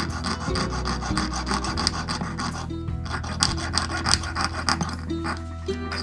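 Jeweller's piercing saw cutting through a coil of copper wire in quick back-and-forth strokes, with two brief pauses.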